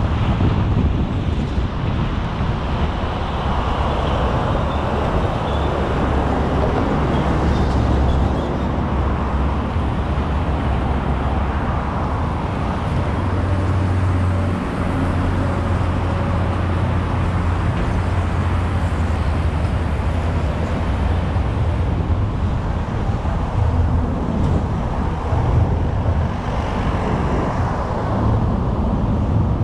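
Steady road traffic noise: a continuous low rumble of vehicles and tyres on the road.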